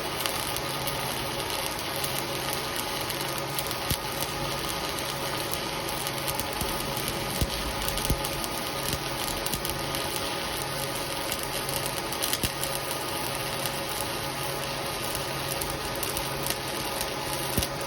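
A machine running steadily with a constant hum, and a few sharp clicks here and there.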